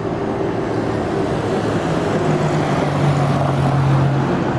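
Freight train of lumber-loaded flatcars rolling past with a steady rumble, growing louder. A road vehicle passes close by near the end, its hum dropping in pitch.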